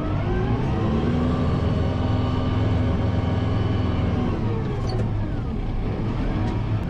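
Kubota M7060 tractor's four-cylinder diesel engine running under throttle. It revs up in the first second, holds steady, drops back about four and a half seconds in, then picks up again near the end.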